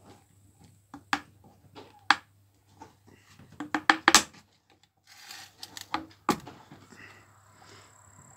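Paint tins and mixing cups being handled on a bench: scattered sharp clicks and knocks, with the loudest cluster about four seconds in.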